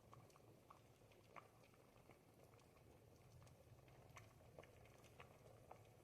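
Thick ribollita soup simmering in a pot, faint: small bubbles pop at irregular moments, several a second, over a low steady hum.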